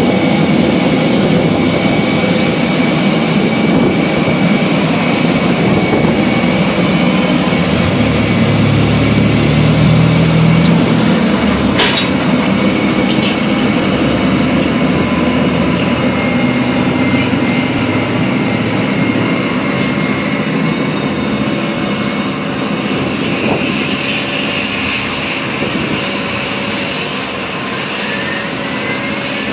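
Jet whine from an Airbus A320 on the ramp during pushback: steady and loud, with several high tones held throughout and a heavier low rumble about eight to twelve seconds in. In the last few seconds, rising whines climb in pitch as an engine spools up.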